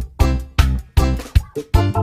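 Intro music with a steady drum beat, about two and a half strikes a second, over low bass notes.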